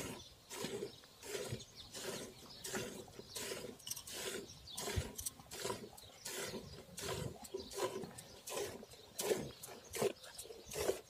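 Hand-milking a cow: jets of milk squirting into a steel bucket already holding frothy milk, in an even rhythm of about two squirts a second.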